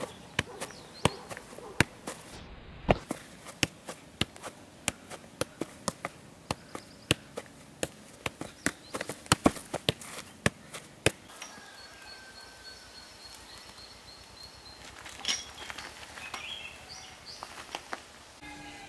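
A football being juggled, each touch on the ball a sharp thud, about three a second; the touches stop about eleven seconds in, leaving faint outdoor noise.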